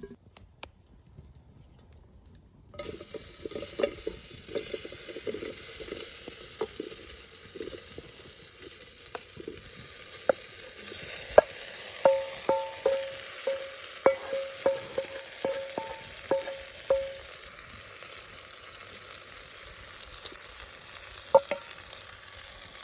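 Food sizzling as it fries in a pan, starting suddenly about three seconds in, with a utensil stirring and knocking against the pan. Midway comes a run of quick ringing metal taps.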